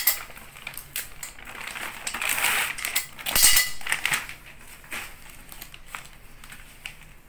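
Clear plastic packaging crinkling and rustling as a folded white sheer curtain is pulled out of its bag, with a louder burst of crinkling about halfway through.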